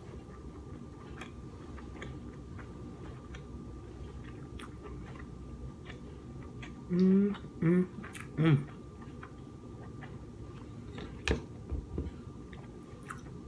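A person eating king crab legs: quiet chewing with scattered sharp clicks from the shell and utensils. About halfway through come three short vocal sounds in a row, and a few louder clicks follow near the end.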